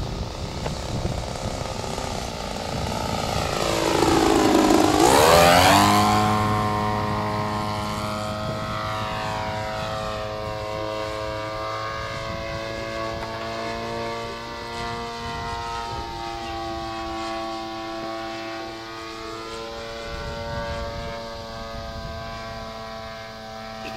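Radio-controlled aerobatic model airplane's motor and propeller passing overhead. The pitch sweeps sharply down as it comes closest, about five seconds in, then settles into a steady drone that shifts slightly as it manoeuvres.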